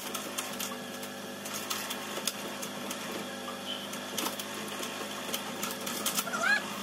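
A steady machine hum runs throughout, with irregular clicks and light knocks as a scooter on its centre stand is handled and rocked.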